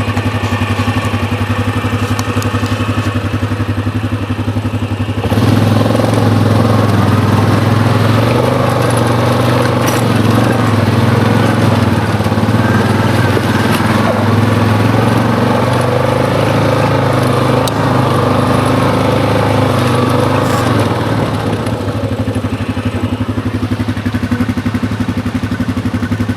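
ATV engine running under way. It suddenly gets louder about five seconds in as it is throttled up, then eases off about twenty seconds in.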